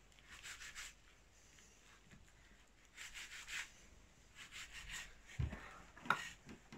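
Knife cutting and scraping through raw meat and fat on a wooden cutting board, in a few short strokes, with a couple of knocks on the board near the end.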